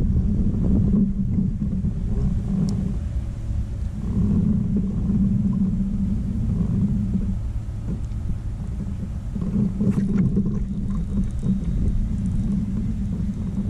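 Steady low rumble of wind buffeting the boat-mounted camera's microphone, swelling and easing every few seconds, with a few faint clicks.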